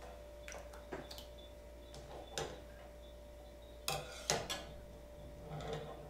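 Wooden chopsticks clicking and knocking against a stainless steel saucepan as boiled sausages are lifted out: a scattering of light clinks, the loudest two about four seconds in.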